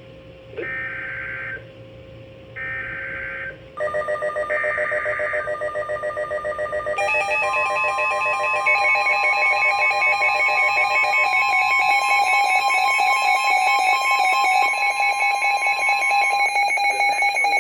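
NOAA Weather Radio Emergency Alert System header: three short, harsh digital data bursts. Then the steady warning alarm tone, about nine seconds long. From about four seconds in, weather radio receivers' pulsing alarm beeps layer over it and grow denser, set off by the alert.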